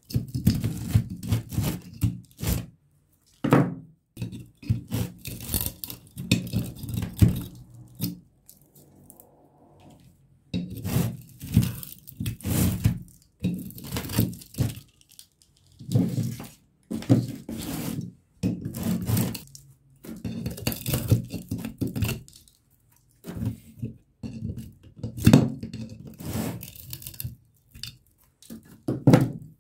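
Burned copper windings being torn out of a 1 HP water pump motor's stator with pliers: irregular bursts of tearing and scraping, with occasional knocks of metal on metal.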